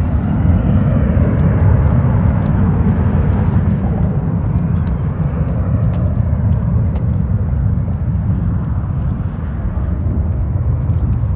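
Jet airliner taking off, its engines at takeoff power making a loud, steady rumble; the higher hiss swells over the first couple of seconds and then slowly fades.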